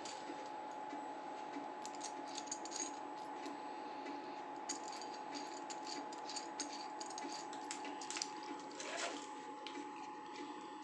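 Scattered light metallic clicks and clinks from anchor bolts being handled and set down, over a steady faint hiss and a thin constant whine.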